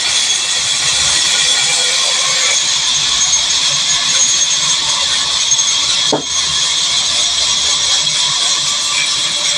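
A sawmill's log band saw cutting lengthwise through a log: a loud, steady, high-pitched whine and rasp of the blade in the wood. There is a short dip about six seconds in.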